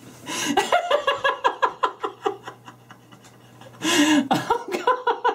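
A man laughing hard: a long run of quick "ha-ha" pulses, about six a second, dropping in pitch. After a short pause about two and a half seconds in, a fresh burst of laughter starts near the end.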